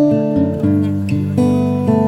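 Background music: an acoustic guitar strumming and plucking chords, with new chords struck about three times.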